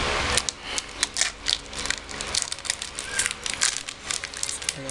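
Plastic wrapper of a Beng Beng chocolate wafer bar crinkling in the hands, a string of irregular sharp crackles as it is handled and opened.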